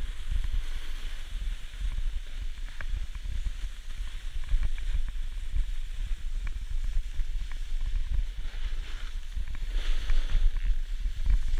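Wind buffeting the microphone of a pole-held camera, a gusty rumble, over the hiss of a snowboard sliding on packed snow. The hiss swells about ten seconds in.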